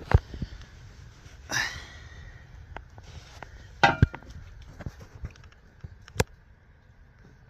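A few sharp knocks and clicks, with two short scraping or rustling sounds about one and a half and four seconds in, over a faint low hum.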